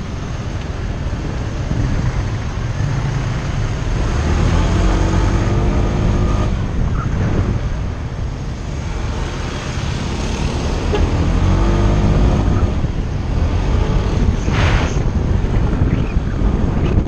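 Motor vehicle engine on the road, its pitch climbing twice as it speeds up, under steady road and wind noise on the microphone. A short hiss comes a couple of seconds before the end.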